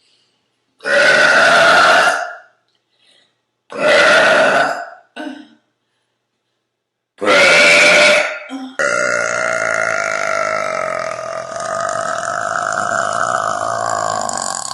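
A woman burping on purpose: three short loud burps a few seconds apart, then one long drawn-out burp of about six seconds whose pitch sinks slowly toward the end.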